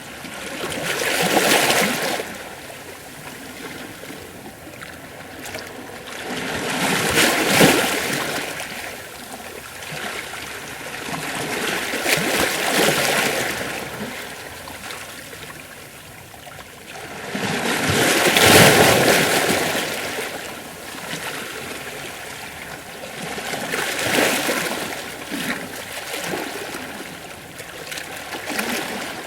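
Gentle ocean waves washing over rocks: six swells of splashing and hiss, each rising and falling back about every five to six seconds, the loudest about two-thirds of the way through.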